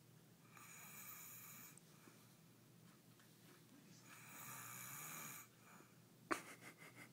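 A man snoring faintly: two long snores, each over a second, about three and a half seconds apart. A single sharp click comes about six seconds in.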